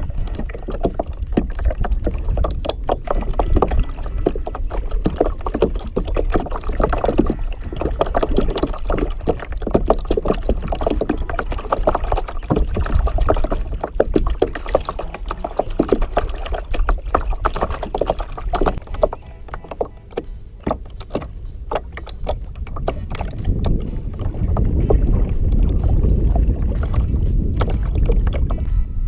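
Water lapping and splashing against a kayak, with a steady low rumble of wind on the camera's microphone and many small irregular knocks and clicks throughout; the rumble grows louder over the last few seconds.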